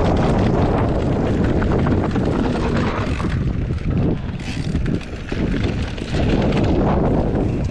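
Wind buffeting the microphone at riding speed, a loud low rumble that eases off for a couple of seconds about halfway through.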